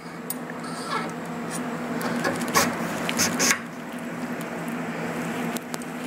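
AR-15 handguard being worked onto the upper receiver's barrel nut: rubbing and scraping with a few sharp clicks near the middle, over a steady low hum.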